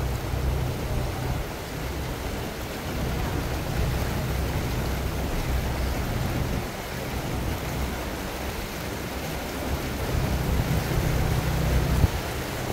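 A vehicle engine running with a steady low hum under a constant rushing noise. The hum fades somewhat in the middle and comes back stronger near the end.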